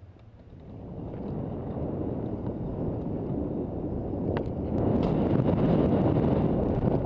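Wind rushing over a camera microphone mixed with the rolling noise of a Kona Stab downhill mountain bike's tyres on a dirt trail, growing louder as the bike gathers speed. A couple of sharp clicks come about four and a half seconds in.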